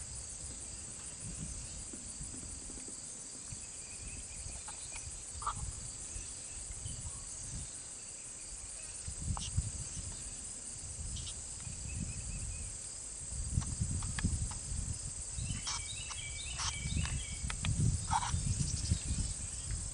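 Steady high-pitched insect trilling. Bursts of low rumbling grow stronger in the second half, and a few short chirps and clicks come in the last few seconds.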